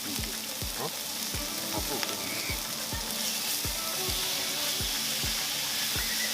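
Pork belly sizzling as it fries, a steady crackling hiss. Background music with a steady low beat, about two and a half thumps a second, runs underneath.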